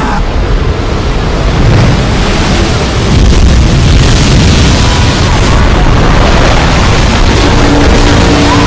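Loud rushing of a huge tsunami wave breaking toward the shore: a dense, deep noise of churning water that grows louder about three seconds in. Near the end a steady low tone joins it.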